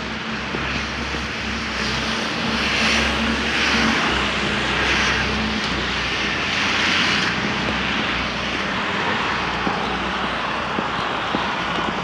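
City street traffic: a steady engine hum with the hiss of a passing vehicle that swells in the middle and eases off about seven seconds in.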